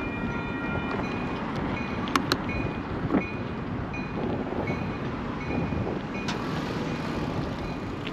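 Bicycle rolling on asphalt: steady tyre and wind noise with rattling, a faint high squeak repeating about twice a second, and a few sharp clicks about two and three seconds in.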